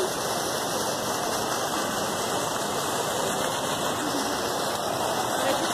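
Fountain jets splashing into a pool, a steady rushing hiss of falling water.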